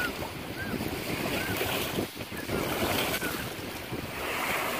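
Water rushing past a moving boat's hull with wind buffeting the microphone, and a few faint short chirps over it.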